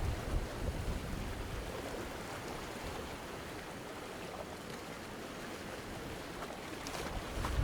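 Medium ocean waves breaking and washing against rocks: a low rumbling surge at the start that eases off, with the next wave building and breaking near the end.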